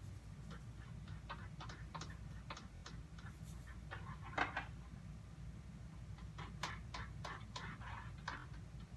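Homemade dish-soap slime being worked by hand, giving faint, irregular sticky clicks and small squelches, one louder one about halfway through, over a low steady hum.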